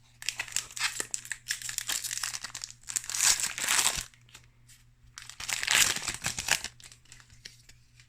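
Foil booster-pack wrapper crinkling as it is handled, in two spells of a few seconds each.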